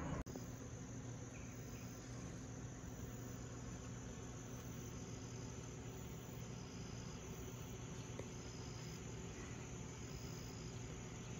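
Insects chirping outdoors, short high calls repeating about once a second over a faint steady low hum.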